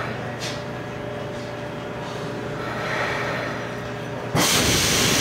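Seoul Metro 2000-series subway car coming to a stop at a station, heard from inside as a steady hum with a few level tones. About four seconds in, a sudden loud hiss sets in and keeps going.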